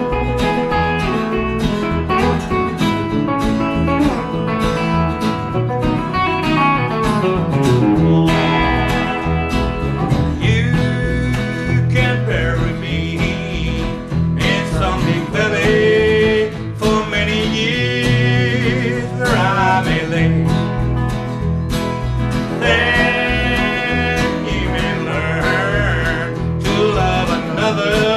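Live band playing a country-tinged blues number on electric guitar, strummed acoustic guitar and upright bass, with a steady beat.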